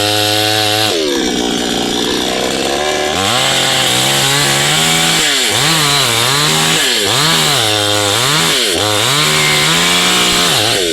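Chainsaw engine running while cutting a tree. About a second in its pitch falls away, then rises again. In the second half the pitch dips and recovers about once a second as the chain bogs in the wood and frees up.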